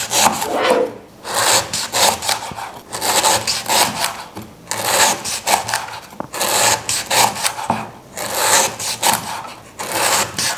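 Knife slicing lemongrass stalks thinly, a run of short crisp cutting strokes, roughly one a second.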